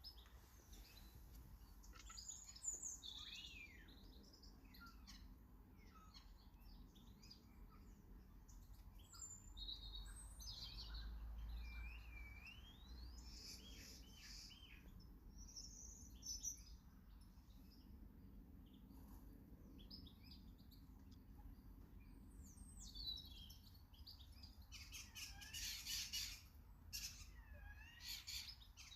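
Small garden birds chirping and singing: a steady stream of short chirps and whistled phrases, busiest near the end.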